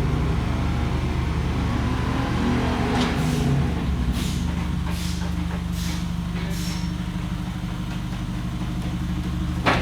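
A car engine running steadily at a constant speed, with a few faint clicks partway through.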